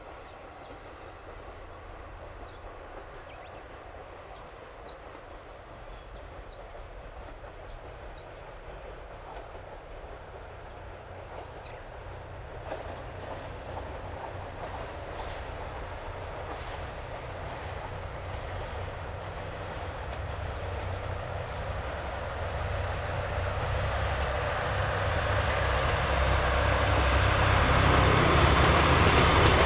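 Two JR Freight DD51 diesel-hydraulic locomotives working together, their V12 diesel engines running with a low rumble that grows steadily louder as the freight train approaches. Near the end the locomotives pass and the wheels of the tank wagons rolling on the rails join in.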